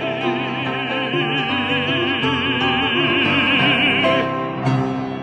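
Classical art-song singing: an operatic voice holds the final note with wide vibrato over the accompaniment, cutting off about four seconds in, then a final accompaniment chord sounds and rings out.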